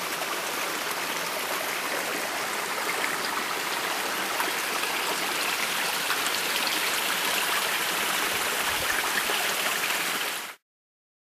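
Small woodland brook trickling over stones: a steady, even rushing hiss that cuts off suddenly near the end.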